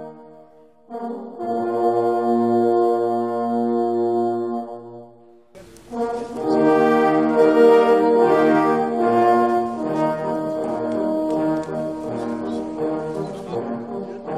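Brass horn music: a long held chord, a brief pause, then from about six seconds in a livelier passage of several horns changing notes together.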